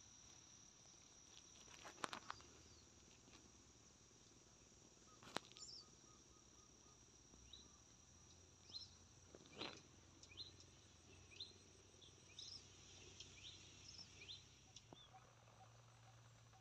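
Faint, steady high-pitched chirring of insects, with a series of short rising chirps in the middle and later part and a few sharp clicks, the loudest about two, five and ten seconds in.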